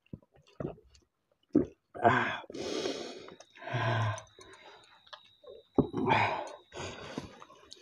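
Mouth noises of someone eating with a mouth crammed full of rice: several short muffled grunts and gulping swallows, strained, mixed with small clicks.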